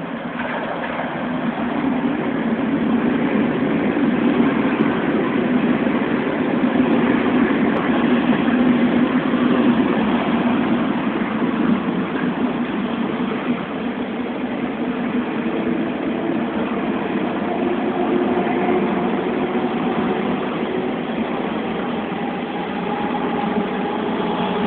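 Berlin S-Bahn electric train (class 480/485) running through the station: a steady, loud rumble of wheels and traction motors that swells as the train comes in. In the second half a faint whine rises slightly in pitch.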